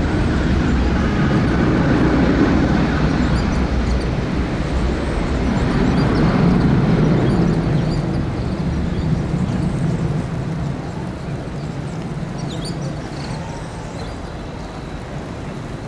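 Jet airliner's engines, a loud low rumble that fades over the last few seconds as the aircraft moves away.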